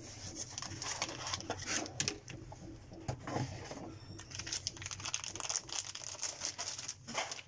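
Plastic packaging crinkling and rustling in irregular bursts as it is handled and opened to unwrap a replacement laptop battery.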